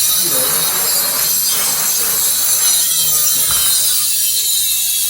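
Loud, steady machine noise with a strong hiss, starting abruptly just before and holding at one level.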